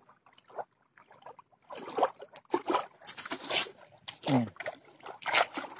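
Shallow water splashing and sloshing in a run of uneven bursts from about two seconds in, as a caught tilapia is put into a wire-mesh keep net standing in the water. A short low falling tone sounds about four and a half seconds in.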